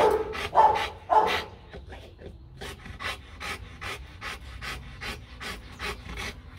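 Rottweiler giving three short barks in quick succession, then panting steadily at about two and a half breaths a second.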